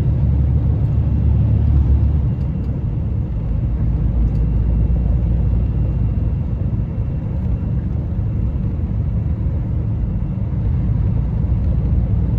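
A Scania 113 truck cruising on the highway, heard from inside the cab: a steady low rumble of its diesel engine and its tyres on the wet road, a little louder in the first two seconds.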